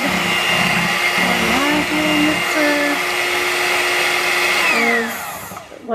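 Electric hand mixer running at low speed, its twin beaters churning thick pudding batter in a stainless steel bowl. Near the end it is switched off and the motor winds down, its whine falling in pitch.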